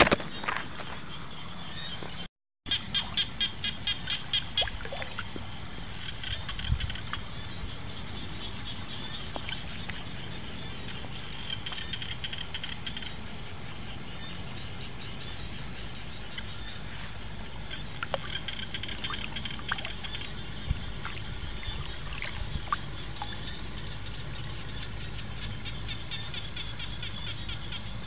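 Frogs calling: fast pulsed trills, loudest in a run of pulses a few seconds in and coming back in patches, over a steady low hum.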